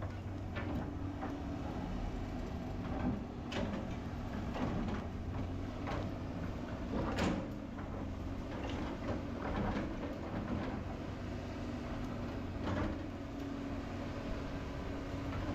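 Excavator's diesel engine running steadily, with short scrapes and knocks now and then, the sharpest about seven seconds in.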